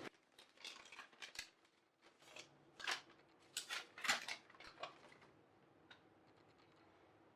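Faint rustling and clicking of an SSD's cardboard and plastic retail packaging being handled, a dozen or so short sounds through the first five seconds.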